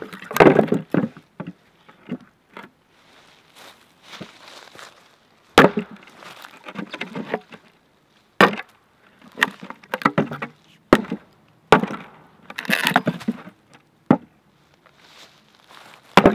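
Hatchet chopping kindling wood: about six sharp strikes spaced a few seconds apart, each followed by splintering and crackling of the wood.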